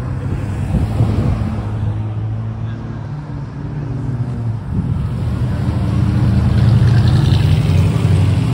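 Car engines running, with a low engine drone that grows louder over the last few seconds as a car comes closer or revs up.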